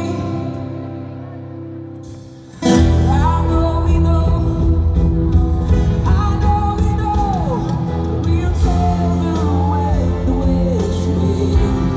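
Live pop-rock band performing a song. A held chord fades, then about two and a half seconds in the full band comes back in loudly, with drums, bass and guitar and a singing voice gliding over it.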